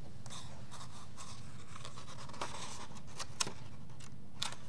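Hands turning a page of a hardcover picture book: paper rustling and sliding, then a few sharp taps and clicks of the page and cover, over a steady low hum.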